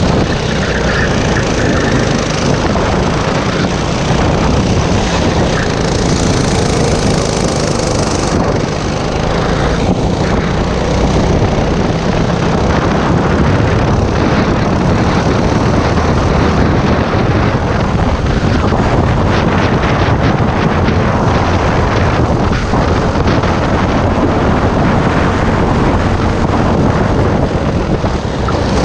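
Racing go-kart's single-cylinder engine running hard at race speed, heard from the driver's seat, with wind rushing over the microphone.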